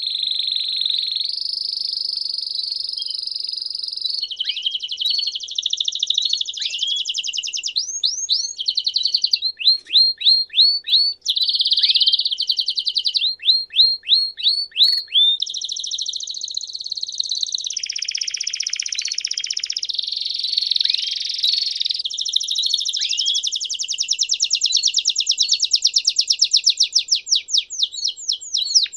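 Domestic canary singing a long unbroken song of rapid trills, switching every second or two between different rolling trills and series of down-slurred whistled notes.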